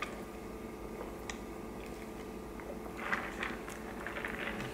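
Quiet room tone with a steady low hum, broken by a few faint clicks and soft rustling mouth or handling noises.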